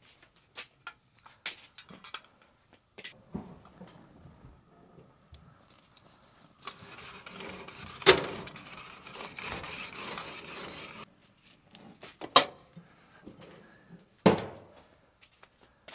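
Metal clinks and clatter of cooking gear being handled at a gas grill, a few sharp knocks among them, with a few seconds of steady hiss in the middle.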